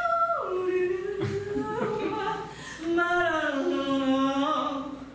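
A voice singing wordless, sliding notes: a falling swoop near the start, then long held notes that glide slowly downward.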